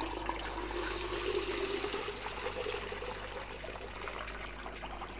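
Water pouring from a plastic container into a plastic-bottle artemia hatcher, the pitch of the pour rising as the bottle fills, then easing off near the end.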